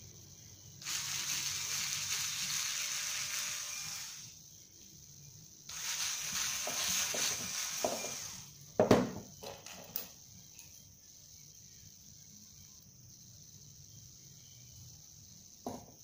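Small cordless drill-driver boring a hole into a thin wooden twig, running in two hissing spells of about three seconds each. About nine seconds in comes a loud knock, followed by a few lighter clicks.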